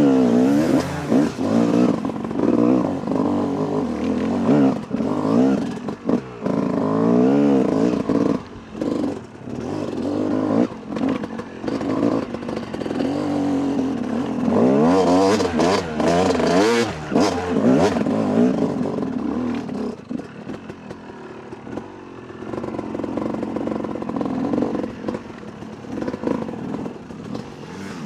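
Yamaha YZ 250 two-stroke dirt bike engine revving up and down repeatedly as it climbs a rough hill track, the revs rising and falling every second or two. Rattles and knocks from the bike over rough ground are heard, thickest about halfway through.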